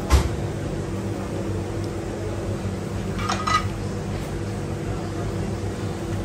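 Steady hum of a kitchen extractor hood, with a sharp metal clank right at the start and a brief ringing metal scrape about three seconds in, as a steel plate is worked down the shawarma skewer onto a stack of raw chicken.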